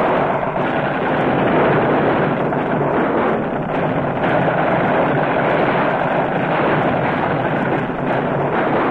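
Battle sound effects: a loud, steady, continuous roar of combat noise on a muffled old film soundtrack.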